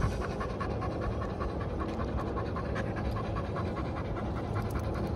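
A white mixed-breed dog panting rapidly and evenly close to the microphone, about four to five breaths a second.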